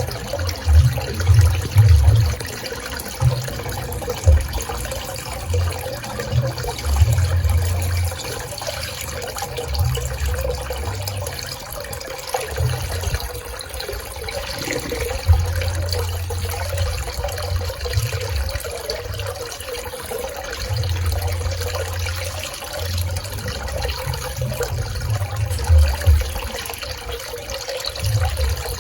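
Swimming pool water running and splashing as a steady watery rush. An uneven low rumble comes and goes underneath it.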